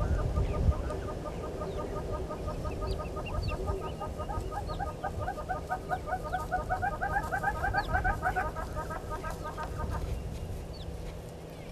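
Birds calling: a long run of rapid, evenly repeated clucking notes that quickens and thickens before stopping about ten seconds in, with scattered short, high chirps over it.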